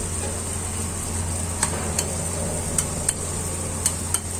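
Onion-and-masala mix sizzling in an aluminium kadai over a steady low hum, with about six sharp clicks of metal and eggshell on the pan as a steel spoon works the mix and eggs are cracked into it.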